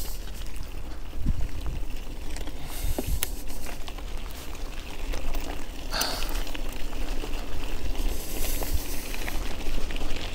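Riding a bicycle: wind rumbling on the microphone over a steady rushing noise, with scattered small clicks and rattles and a brief hiss about six seconds in.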